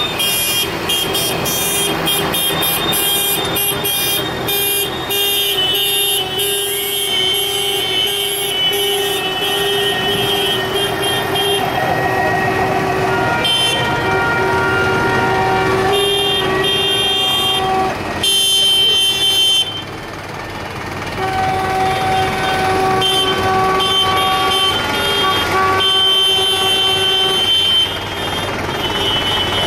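Tractor engines running as the tractors pass slowly, with horns honking repeatedly in long steady blasts at several different pitches.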